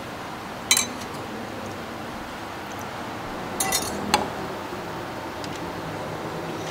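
A metal ladle and a wire-mesh noodle strainer clinking against a ceramic bowl: one sharp clink about a second in, then a short run of clinks and a knock around four seconds in, over steady background noise.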